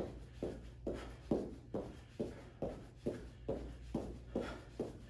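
Feet landing on a rubber gym floor during straight-arm jumping jacks: a steady rhythm of soft thuds, about two landings a second.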